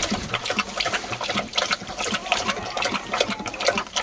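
Kangal shepherd dog lapping and slurping wet mash of feed and water from a plastic bowl: a quick, irregular run of wet lapping sounds.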